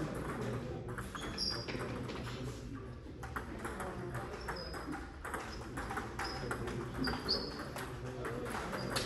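Table tennis ball clicking sharply off paddles and table in an irregular series of light hits, with several short high squeaks, over the steady murmur of a sports hall.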